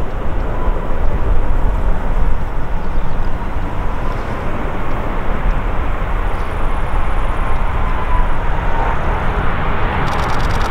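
Airbus A330-243's two Rolls-Royce Trent 772B turbofans on final approach: a steady rumbling rush with a faint whine that dips in pitch near the end as the airliner draws close.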